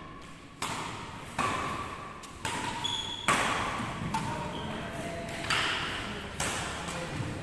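Badminton rally: rackets striking the shuttlecock about once a second, seven hits in all, each followed by a short echo. Brief shoe squeaks on the court come between the hits.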